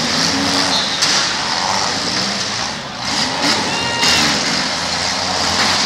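Demolition derby cars' engines running and revving in the arena, with sudden bangs of cars colliding about a second in and again about four seconds in.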